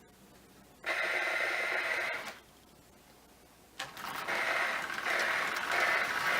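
Marx toy steam engine with Sound O' Power tender starting up on tinplate O-gauge track: a hissing simulated-steam noise from the tender comes on about a second in, cuts out briefly, then returns about four seconds in as a slow, pulsing chuff.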